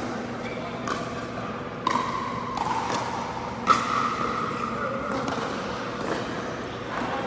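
Pickleball play on an indoor court: several sharp pops of paddles hitting the ball, a second or two apart, the loudest a little past halfway, with shoes squeaking on the court floor between hits.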